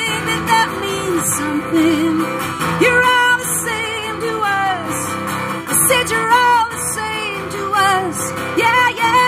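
A woman singing to her own strummed acoustic guitar, live through stage speakers; her voice slides and wavers between held notes, without clear words.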